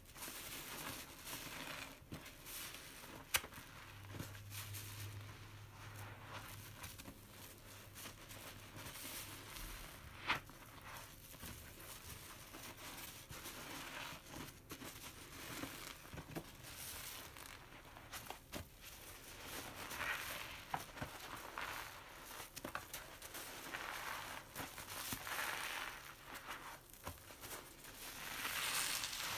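A long sponge soaked in dish-soap foam being squeezed and kneaded by hand in a plastic tub: wet foamy squeezing that swells with each harder squeeze. Two sharp clicks stand out, one about three seconds in and one about ten seconds in.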